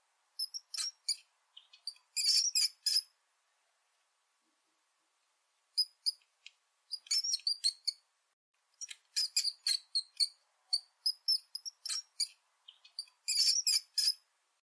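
Mouse squeaking: short, high-pitched chirping squeaks in quick runs of several at a time, with a pause of a few seconds after the first runs.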